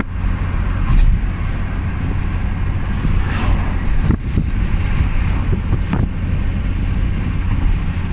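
Wind rushing and buffeting against the microphone in a moving car, over a steady low rumble of road and engine noise, with a few brief knocks.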